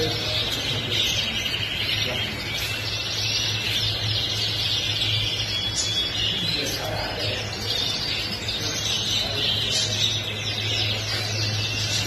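Many caged canaries singing together, a dense, continuous chorus of rapid trills and chirps, over a steady low hum.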